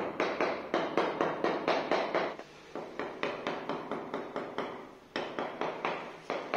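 Quick, light hammer taps on a granite strip, about four a second with two short breaks, bedding the stone down into fresh cement mortar to set it level.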